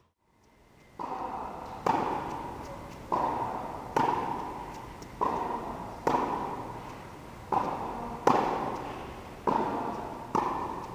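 Tennis rally on an indoor court: tennis balls struck by rackets and bouncing on the hard court, starting about a second in and then coming roughly once a second. Each knock echoes in the large metal-roofed hall.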